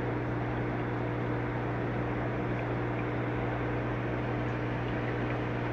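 Steady low hum with a faint hiss behind it, unchanging throughout.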